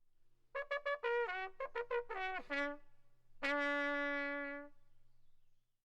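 Short trumpet-like brass tune: a run of quick short notes stepping downward, then one long held note that fades out.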